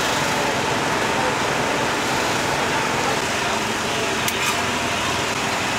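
Steady background din of a busy outdoor night market, a dense mix of crowd and stall noise, with a couple of light clicks about four seconds in.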